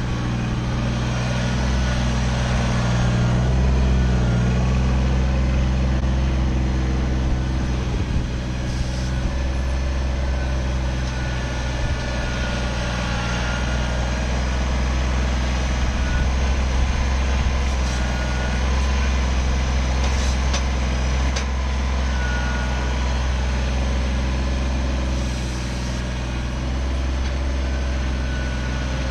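Kubota BX25 sub-compact tractor's three-cylinder diesel engine running steadily, with a few faint knocks along the way.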